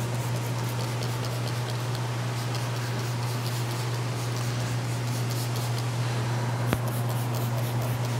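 Steady low hum under faint, scattered scratchy sounds of fabric protectant being applied to a fabric convertible top, with one sharp click about two-thirds of the way through.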